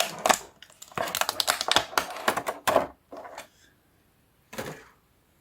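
Plastic action figure clicking and tapping as it is handled: a dense run of sharp clicks for about three seconds, then two softer clicks and quiet.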